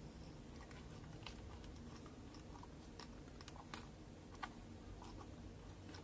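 Faint, scattered small clicks and scratches of fingers twisting a wire onto a terminal of a table fan's speed regulator, a little cluster of them about three seconds in and one louder tick about four and a half seconds in, over a low room hum.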